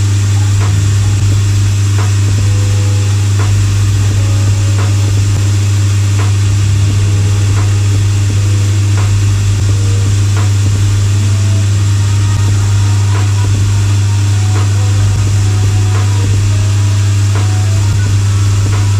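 Shoe finishing machine running with a loud, steady electric-motor hum as a leather sole is worked against its spinning wheel, with faint light ticks about once a second.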